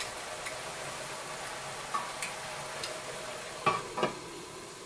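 Minced beef sizzling in a frying pan while a spatula stirs and scrapes it, with a few light clicks. Near the end a metal lid knocks down onto the pan.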